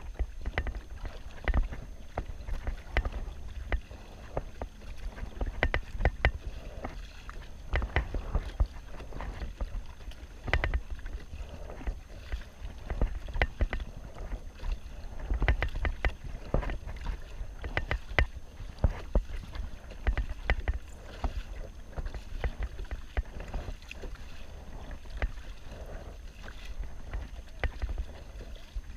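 Kayak paddle strokes splashing and water slapping against a sit-on-top kayak, in irregular splashes, over a steady low wind rumble on the microphone.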